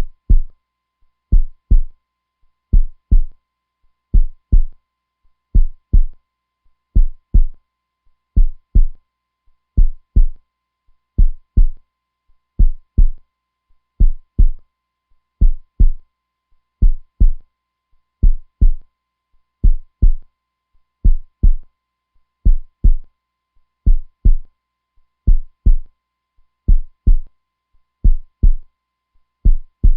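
Heartbeat sound: steady low thuds in lub-dub pairs, a double beat about every second and a half, slow and even.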